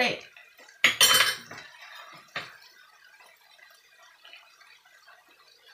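Kitchenware clattering: one loud, sharp clink and clatter about a second in, then a lighter single knock a little over a second later.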